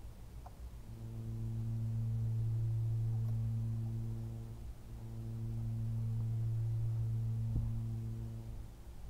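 A man humming a low steady note twice, each hum about four seconds long, swelling up and fading away, with a short click near the end of the second one.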